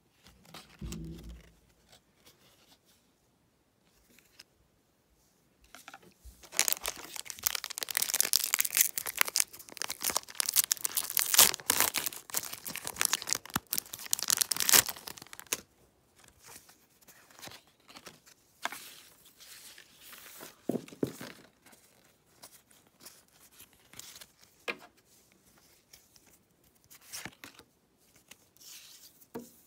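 Foil Pokémon trading-card booster pack wrapper being torn open and crinkled by hand: a dense crackling rustle that starts about six seconds in and lasts about nine seconds. After it, scattered soft rustles and clicks of trading cards being handled.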